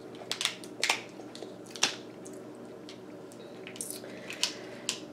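Lobster claw shell being cracked and picked apart by hand: a handful of sharp cracks and snaps at uneven intervals, the loudest about two seconds in.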